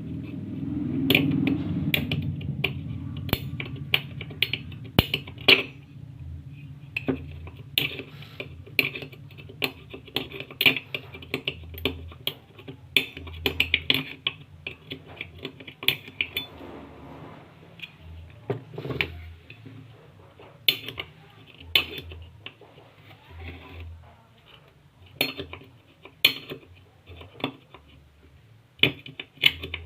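Irregular metallic clinks, taps and knocks of hand tools and parts of a 12-volt snail horn being handled while the horn is worked on.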